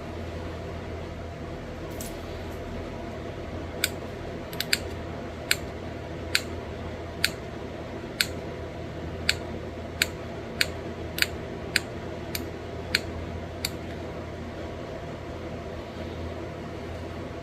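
Pressure flaking on a small stone bird point: about sixteen sharp little clicks, irregularly spaced and roughly one a second, as tiny flakes snap off the edge. A steady hum runs underneath.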